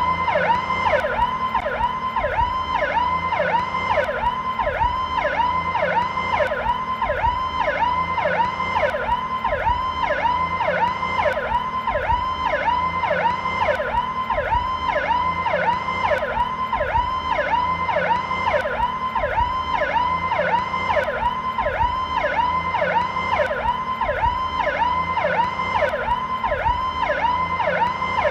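Powercall police siren in its slow version, repeating a short pitch sweep over and over at an even pace, each sweep falling away after a quick rise.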